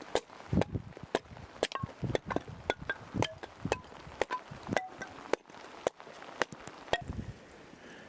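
Firewood being broken and chopped into kindling: a rapid, irregular run of sharp cracks and knocks, some with a short ringing ping, that stops about seven seconds in.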